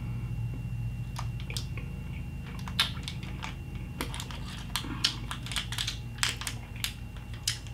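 Super sour mango chewing gum being chewed: scattered small mouth clicks and smacks over a steady low hum.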